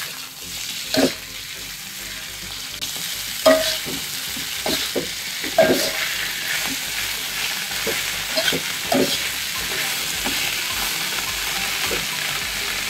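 Shredded cabbage, carrot and mushrooms sizzling in a hot wok while a spatula stirs them, with irregular scrapes and clinks of the spatula against the wok.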